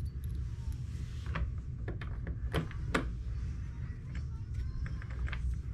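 Small parts and tools being handled on a workbench while the RC truck's drivetrain is assembled: a handful of light clicks and knocks, with a steady low hum underneath.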